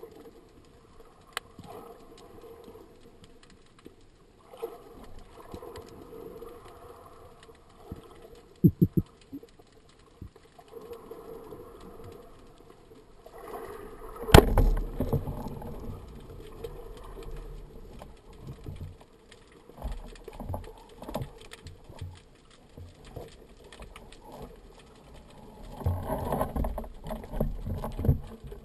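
Underwater noise of a spearfisher moving and handling a band-powered wooden speargun, heard through the camera housing: low rubbing and knocking, a quick run of sharp clicks, and one sharp loud crack with a thud about halfway through, likely the speargun being fired. Near the end comes a busy run of knocks and scraping as the unloaded gun's bands are handled.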